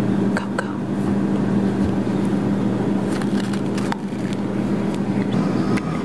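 A steady low mechanical hum throughout, with a few light clicks and scrapes from a plastic measuring spoon scooping powdered brownie mix and knocking against a mug.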